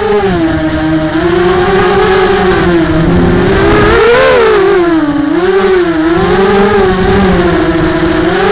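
ZMR 250 mini quadcopter's brushless motors and propellers whining, the pitch rising and falling repeatedly with the throttle and highest about four seconds in.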